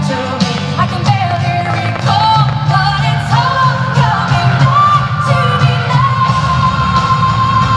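A pop song with a female-sounding sung melody that glides between notes and then holds one long note over steady backing, with a few faint firework pops underneath.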